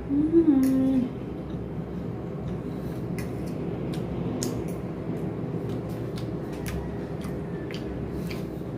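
A woman's short hummed "mmm" of approval on tasting the food, then scattered light clinks of cutlery on a plate as she eats, over a steady low hum.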